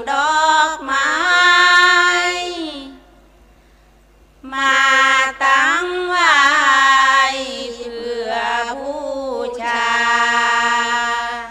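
Thai women singing sarabhanya, Buddhist verse in long, gliding held notes, with no instruments. The singing breaks off for about a second and a half around three seconds in, then resumes.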